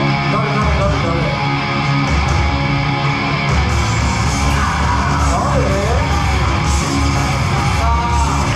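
Wrestler's entrance theme music: loud rock music with guitar and a strong bass line.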